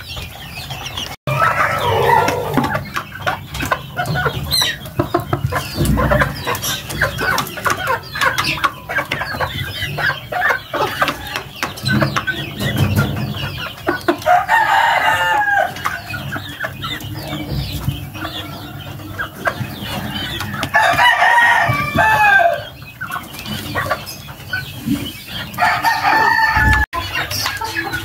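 Young chickens clucking and calling in a pen, with a rooster crowing a few times, each crow about a second long.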